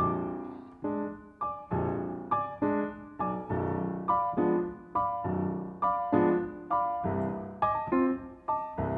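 Piano playing an instrumental break in a slow blues ballad: chords and short runs of notes are struck about once or twice a second and left to ring and fade.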